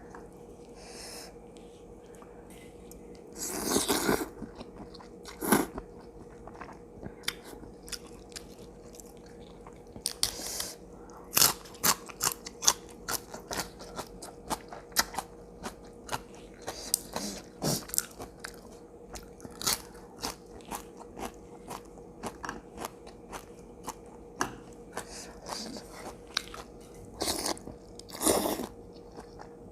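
Close-up eating sounds: a person biting and chewing crunchy food, many short sharp crunches at an uneven pace. A few longer, noisier mouth sounds come in between.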